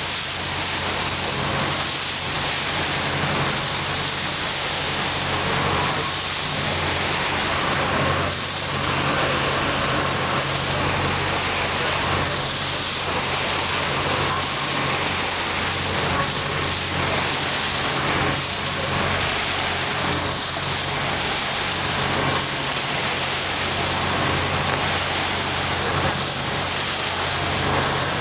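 Motorboat under way at speed: a steady rush of spray and churning water along the hull, with the engine's even drone underneath.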